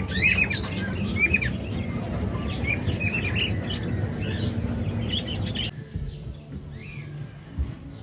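A flock of small caged parrots, cockatiels and parakeets, chirping and calling over and over in an aviary, over a steady low background rumble. The chirping breaks off abruptly about two-thirds of the way through, leaving a much quieter sound.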